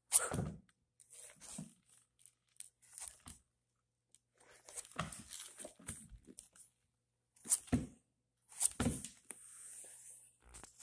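A cat on a hardwood floor batting at small flat discs: a string of short, irregular scuffs, slides and knocks of paws and discs on the boards, loudest at the start and twice in the second half.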